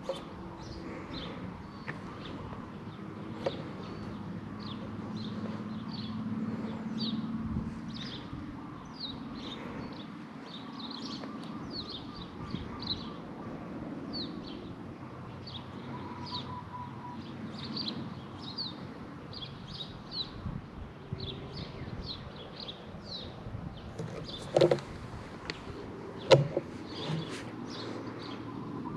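Small birds chirping in woodland, a long run of short high chirps about two a second. Near the end come two sharp knocks a couple of seconds apart.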